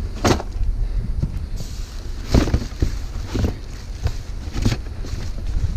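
Wind buffeting the microphone as a steady low rumble, with a few short knocks and clatters as scrap items are handled and sorted.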